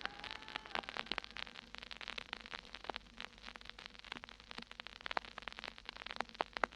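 Vinyl LP surface noise in the silent groove between tracks: scattered crackles and pops over a faint hiss as the stylus runs through the gap on a 1963 Columbia stereo pressing.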